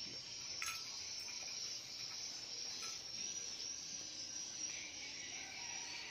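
Steady, high-pitched chirring of insects, with one sharp click a little over half a second in.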